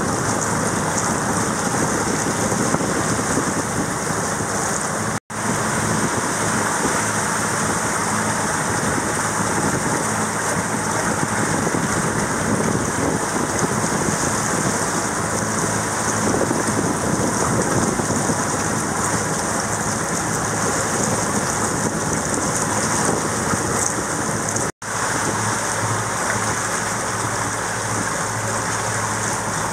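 A steady rushing noise over the low, even hum of a sailboat's engine as the boat motors along. The sound cuts out abruptly twice, about five seconds in and again near twenty-five seconds.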